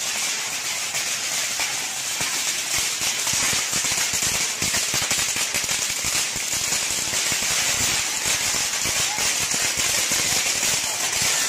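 Fireworks going off on a store floor: a continuous dense crackling and popping with hissing sparks, holding at a steady level throughout.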